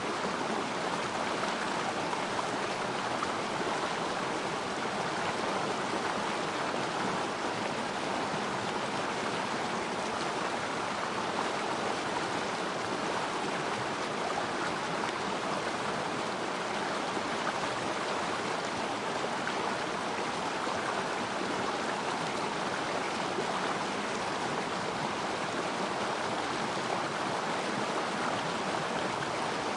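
Water flowing steadily in a small river stream, an even rushing and burbling with no breaks.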